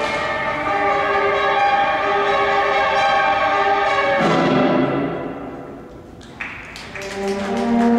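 Recorded orchestral show music for a winter guard routine: held chords that fade down about five seconds in, then a brief high note and a new chord building near the end.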